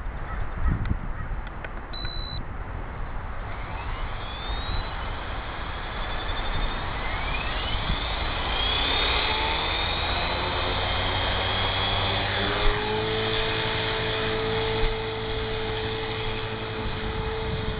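HK-450TT Pro electric RC helicopter's brushless motor and rotor spooling up, a whine rising in pitch from about three seconds in and settling to a steady pitch at head speed after about twelve seconds. A short high beep sounds about two seconds in.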